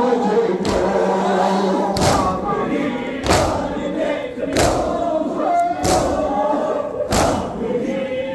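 A large crowd of mourners beating their chests in unison (matam), one heavy slap about every 1.3 seconds, over many men's voices chanting a noha.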